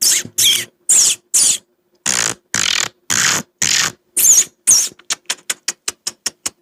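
Beatboxer's mouth imitation of birdsong: a string of short, high chirps, some sliding in pitch, then a quick run of short chirps at about five a second near the end.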